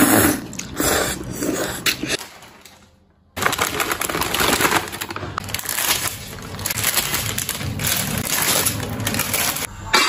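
Slurping of rice noodles for about two seconds, fading out. After a short near-silence, a long run of dense, uneven kitchen noise as dried rice noodles go into a wok of water.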